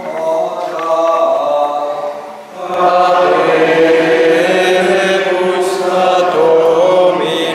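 Choir singing Latin plainchant in one melodic line, with a short break about two and a half seconds in before the singing comes back louder.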